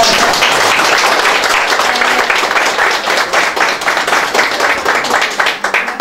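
A group of people applauding, dense steady clapping.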